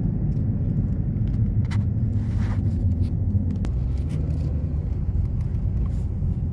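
Steady low rumble of a car driving slowly, its engine and tyres heard from inside the cabin, with a few faint clicks.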